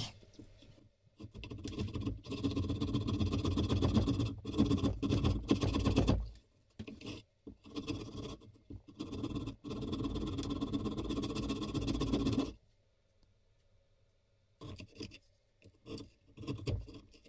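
Hand tools cutting beech in a plane-body mortise. First come two long spells of rapid back-and-forth rasping strokes from a thin blade worked inside the opening. After a pause, near the end, there are a few short chisel paring scrapes.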